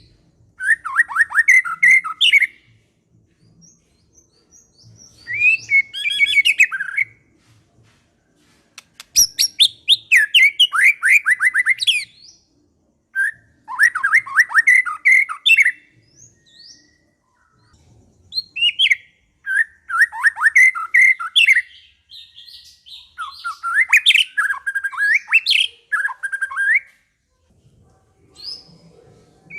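Murai songbird singing: repeated phrases of rapid, varied chirps and trills, each two to three seconds long, with short pauses between phrases.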